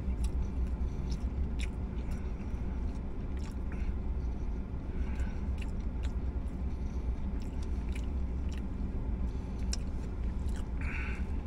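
A man chewing a mouthful of crispy fried chicken sandwich, with scattered small crunches and mouth clicks over a steady low hum.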